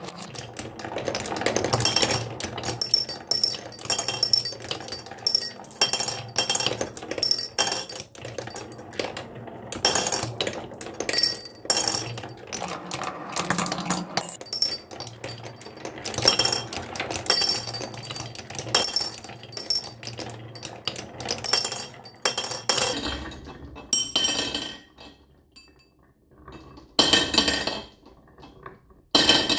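Marbles rolling and clattering down a wooden marble run, clicking against the track and against each other in a dense stream, thinning to a few separate rattles near the end.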